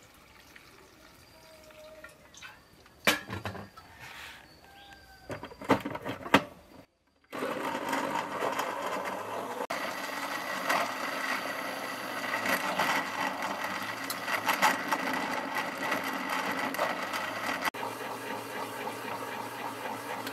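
Small electric blender running steadily, puréeing a watery red pepper mixture, starting about seven seconds in. Before it starts there are a few sharp knocks as the jar is handled and set on its base.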